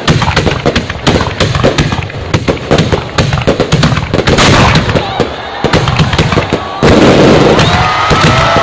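Fireworks going off, a dense rapid string of bangs and crackles. Near the end whistles glide in pitch over the crackle.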